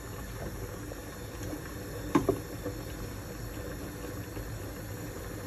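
Steady low rumble of a gas burner heating a pot of creamy green sauce as it comes back to a simmer, with a wooden spoon stirring and a single knock about two seconds in.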